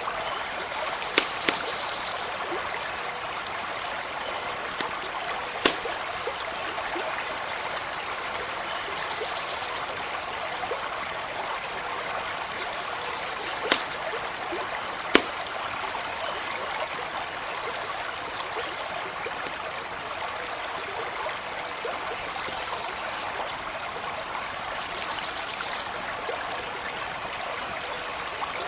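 A creek running steadily over stones, with a few sharp pops from a crackling campfire, the loudest about a second in and in the middle of the stretch.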